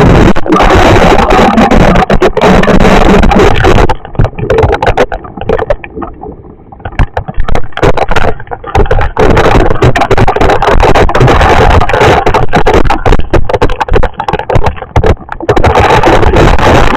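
Storm wind buffeting the microphone, a loud, rough rumble that nearly overloads the recording. It drops back in uneven gusts for a few seconds after about four seconds in, then returns at full strength.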